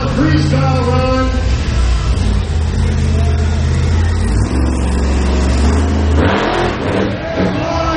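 Monster truck engine running hard, revving up and down in pitch, then dropping away about six seconds in.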